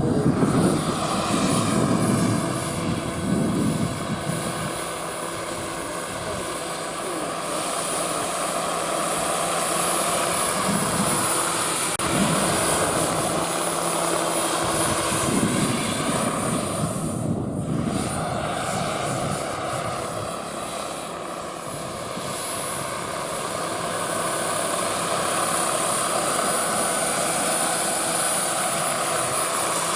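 Radio-controlled scale model helicopter in flight, its motor and rotors running with a steady high whine. The sound swells and fades as the helicopter moves about, dipping at a few points.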